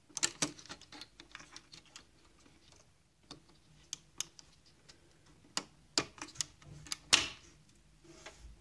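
Small plastic clicks and taps as fingers fit a microswitch and its connectors into a coffee machine's plastic door-switch holder, with a cluster of clicks at the start and another, sharper cluster near the end.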